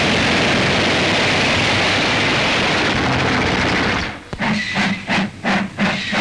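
Steam train: a steady rush of steam and running noise, changing about four seconds in to rhythmic chuffing, roughly three beats a second.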